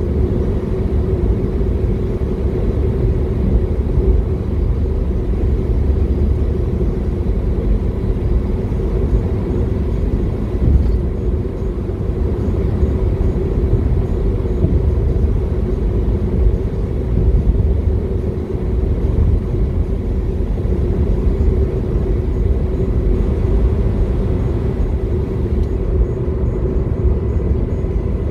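Steady low rumble of a car driving along the road: engine and tyre noise with an even hum, unchanging throughout.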